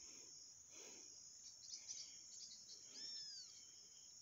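Near silence outdoors: a faint, steady high-pitched insect chorus, with one short arched bird chirp about three seconds in.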